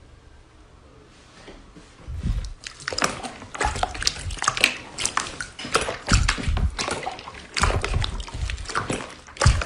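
Hands squeezing and stretching clear slime full of tiny fruit slices: wet squishing with many sharp sticky clicks and pops, starting about two seconds in.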